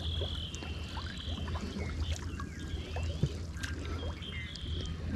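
Water splashing and trickling, with many small drips plopping into the water, over a steady low hum.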